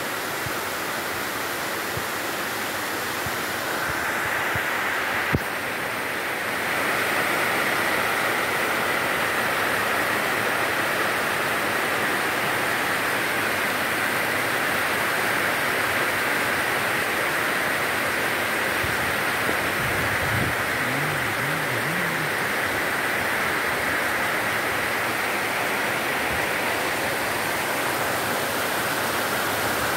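Heavy tropical rain falling steadily on foliage, roofs and flooded ground, a continuous hiss that grows louder a few seconds in. A brief knock sounds about five seconds in.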